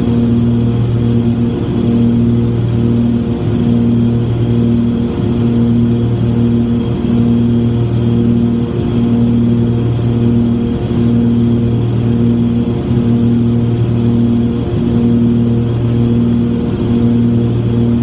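A Cessna 340's twin turbocharged six-cylinder piston engines and propellers drone steadily, heard inside the cabin. The drone swells and fades in a regular beat, about one to two times a second: the two propellers are turning at slightly different speeds.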